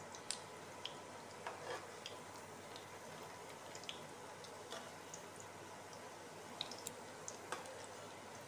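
Rohu fish-roe fritters shallow-frying in hot oil in an aluminium kadai: a faint steady sizzle with scattered small pops and clicks as they are turned with a metal spatula.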